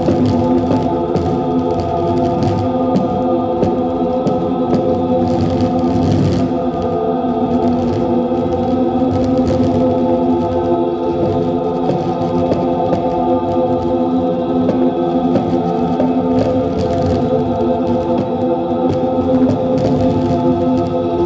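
Loud droning music: a dense chord of many steady held tones, choir- and organ-like, the sound whose vibrations set the paint and seed burrs on the paper moving.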